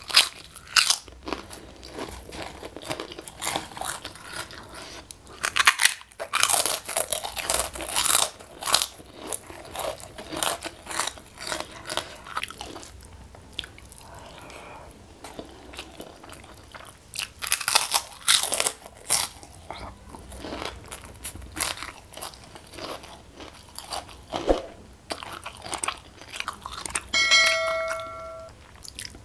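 Close-miked eating: loud crunching bites of kerupuk crackers and chewing of rice and chicken, coming in bursts. Near the end, a short chime of several steady tones.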